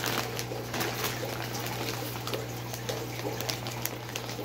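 Water-filled plastic fish-shipping bags crinkling and rustling as they are handled and lifted out of a styrofoam shipping box, with the water sloshing inside, over a steady low hum.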